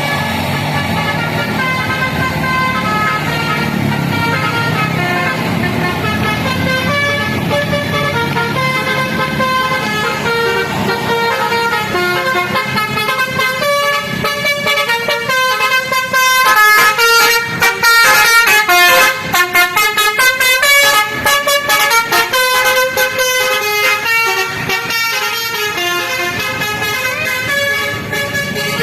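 A tour bus's Basuri 'telolet' multi-tone horn plays a tune of stepped notes over the bus engine running. About halfway through, the horn gets louder and breaks into fast, choppy repeated notes.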